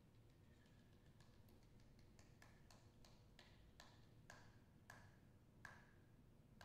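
Body percussion: about a dozen faint, sharp clicks made on the performer's own body, each with a brief ringing pitch, growing louder over a few seconds with the loudest near the end.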